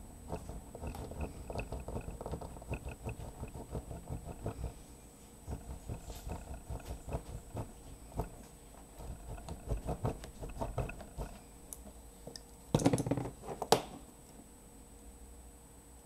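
Craft knife blade scraping on a 2 mm brass tube as the tube is rolled under it to score a groove all round: a fast, irregular run of small clicks and scratches, pausing now and then. About 13 seconds in there is a louder brief clatter.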